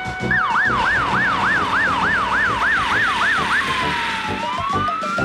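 Fire engine siren in a fast yelp, sweeping up and down about three times a second for some three seconds. It then switches to a slow wail that falls and rises again.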